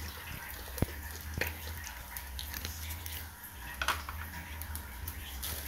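Fried rice cooking quietly in a pot on a gas stove: a faint hiss over a low steady hum, with a few light clicks about one, one and a half and four seconds in.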